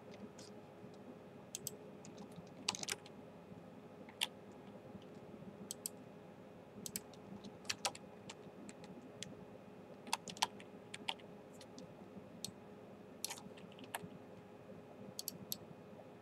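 Scattered, irregular clicks of a computer mouse, some in quick pairs, over a faint steady hum.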